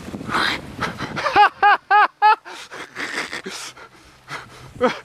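Four short honking calls in quick succession about a second and a half in, each rising then falling in pitch, between patches of breathy rustling noise.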